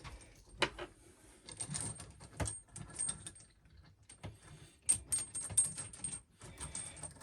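Irregular clicks and light metallic rattles of tap hoses and their metal fittings being handled and threaded through the mounting hole.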